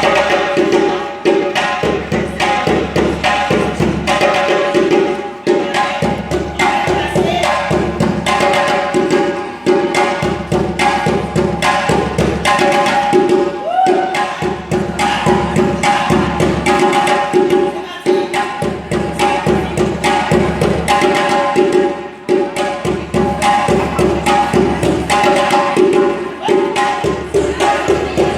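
Music with a fast, steady percussion beat over sustained instrument tones.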